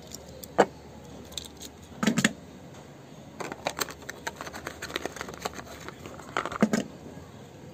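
Scattered plastic clicks and clacks from a Plarail toy train being handled and set on its plastic track, in short bursts a few seconds apart.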